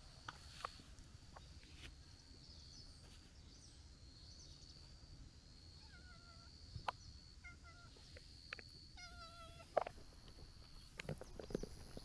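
Brown-tabby-and-white cat meowing three times as it comes up close, short calls with the last one longer.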